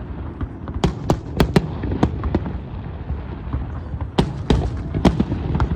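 Fireworks going off in an irregular series of sharp bangs, bunched in two clusters, about a second in and again about four seconds in, over a steady low rumble.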